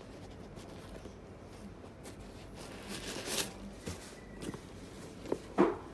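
Handling noise from a leather sneaker being turned in the hands: fingers rubbing and brushing the shoe, a rustling scrape about three seconds in, and a few light knocks, the loudest shortly before the end.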